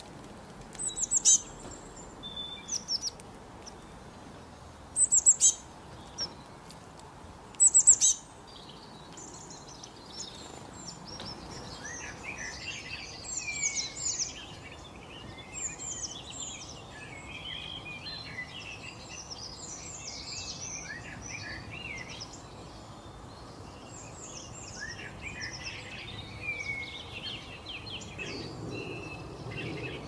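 Songbirds calling and singing: three loud bursts of sharp, high calls in the first eight seconds, then a busy, continuous chorus of varied chirps and trills from several birds.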